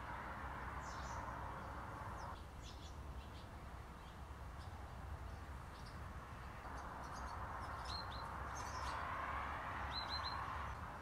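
Engine oil pouring from a plastic bottle into an engine's filler neck, a steady hiss and gurgle at the start and again through the second half. Songbirds chirp in short, scattered calls over it, with a quick run of three notes near the end.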